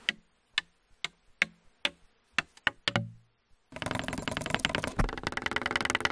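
A quick run of percussion samples made from wood and forest objects: about ten separate knocks and taps on wood, one a deep strike with a low ringing tail, then a dense rattling shaker-like sound about halfway through.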